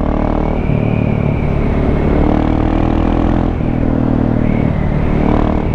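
KTM 690 SMC's A2-restricted single-cylinder four-stroke engine running under way, its note changing a few times as the throttle is opened and closed.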